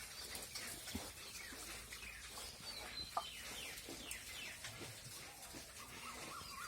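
Faint farm-animal calls: many short, high chirping calls, each falling in pitch, repeating irregularly.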